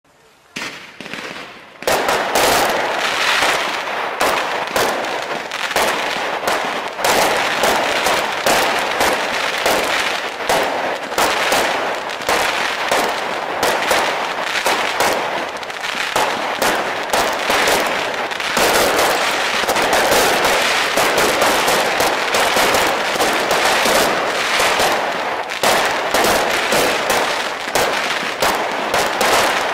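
Fireworks display: a dense, unbroken barrage of launches, bangs and crackling bursts. It starts softly under a second in and reaches full intensity at about two seconds.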